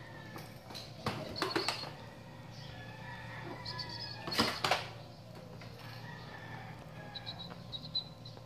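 Scuffling and rustling from a cat at play on a tiled floor, with two louder bursts of clattering noise, about a second in and again after about four seconds. Handling noise from the camera moving, over faint steady high tones.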